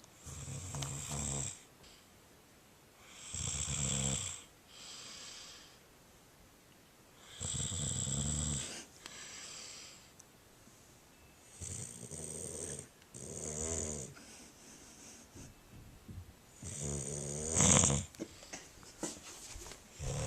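A sleeping person snoring: about five snores some four seconds apart, each a low breath often followed by a shorter, softer one.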